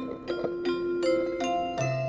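Background music: a light tune of short, ringing mallet-like notes over held bass notes.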